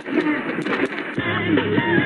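Music from an AM medium-wave station playing through the RRS RS-661BT portable radio's small speaker. It has the dull, treble-less sound of AM reception.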